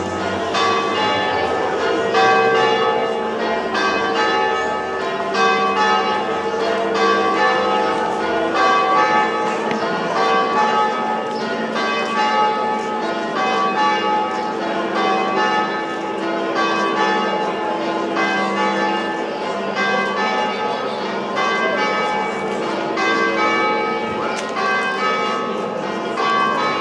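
Church bells pealing, several bells of different pitch struck over and over so that their tones overlap without a break.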